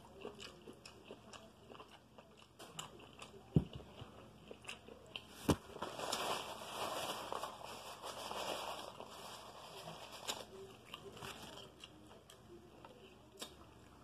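Quiet chewing and mouth clicks from eating shrimp, with two sharp knocks a few seconds in. A paper napkin rustles for a few seconds in the middle as hands are wiped.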